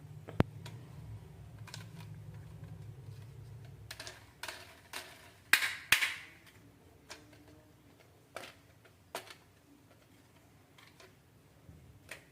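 Marbles clacking down a HABA wooden marble run: irregular sharp clicks, a quick cluster of louder clacks about five to six seconds in, then sparse single clicks. A low hum runs under the first four seconds.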